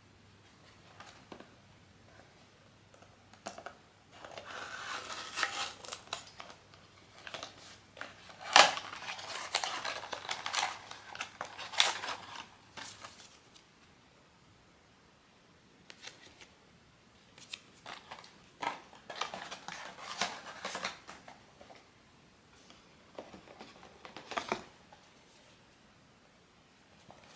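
Blind-box packaging being opened with scissors: snipping and crinkling of the wrapping in two stretches, with a sharp snap about a third of the way in.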